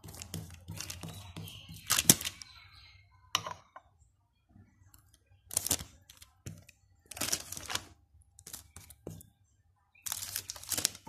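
A metal spoon scraping and tapping against a plate as chocolate paste is spread: a quick run of small clicks and taps at first, then a sharper scrape about two seconds in and several short scraping strokes a second or two apart.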